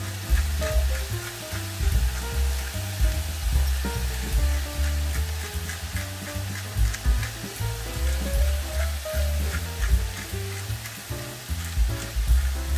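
Diced venison and vegetables sizzling in a hot stainless-steel pot while a hand pepper mill grinds over it in short ticking turns. Background music with a low bass line plays throughout.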